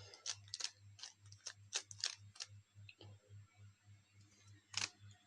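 Plastic Rubik's Cube layers being turned by hand: irregular clicks and clacks as the faces snap round, the loudest a little under five seconds in. A faint low hum pulses steadily underneath, about three to four times a second.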